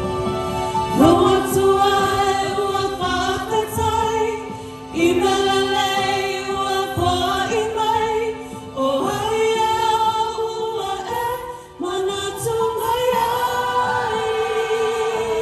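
A choir singing a Christmas carol in sustained phrases of a few seconds each, with short breaks between them, over a steady held accompanying note.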